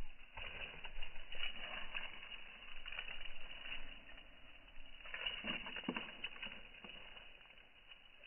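A cat's paws scuffing and pawing on dry, crumbly soil clods and dead leaves. The irregular rustling and crunching is busiest about a second in and again around five to six seconds in, with a few duller thumps.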